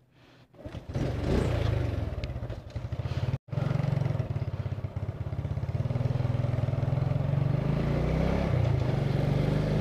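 Motor scooter engine comes in about a second in and picks up as the scooter pulls away, its pitch rising, then runs on steadily while riding. The sound cuts out for an instant about three and a half seconds in.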